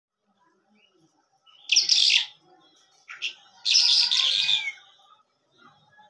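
Caged lark (called lunda jal) singing in two bursts of rapid, high-pitched song, the second one longer, with a short single note between them.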